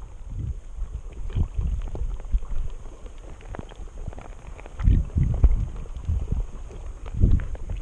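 Muffled underwater rumble from water moving around a submerged camera, with irregular low thumps and swells, strongest about five seconds in and again near the end.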